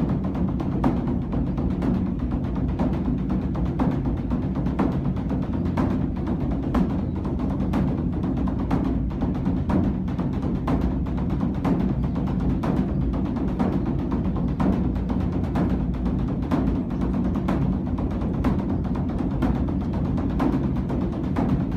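Large Korean Buddhist temple drum (beopgo) being beaten by monks: a dense, continuous run of strokes, several a second, over a steady deep booming resonance.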